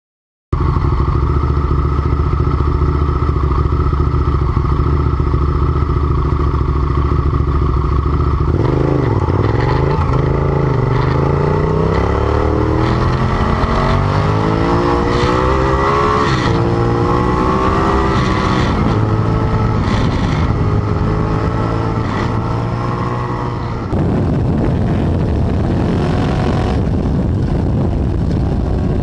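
Motorcycle engine running at a steady note, then from about eight seconds in its revs climb and drop again and again as it accelerates. Near the end the sound changes abruptly to a rougher, noisier engine note.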